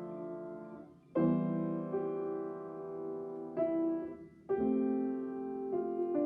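A slow piece played on piano in held chords, a new chord struck about every second or so.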